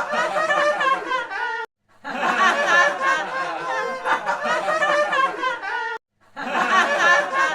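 Laughter with a high, giggling sound, in a repeating edited clip that cuts off abruptly twice, about two seconds in and again about six seconds in, and starts up again each time.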